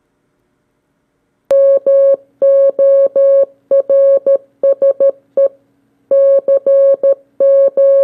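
Modern CW Morse code: a pure, steady beeping tone keyed on and off in short dots and long dashes, spelling out the words "Morse code". It starts about one and a half seconds in, with a longer gap near six seconds marking the space between the two words.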